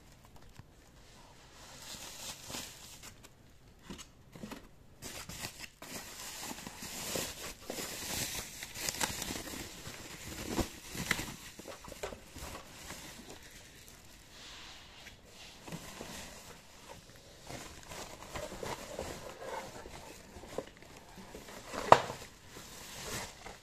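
Plastic protective bag crinkling and rustling in irregular bursts as it is handled. A single sharp tap near the end is the loudest sound.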